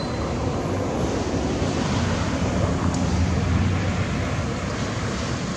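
A steady rushing noise with a low rumble under it, with no distinct calls or knocks.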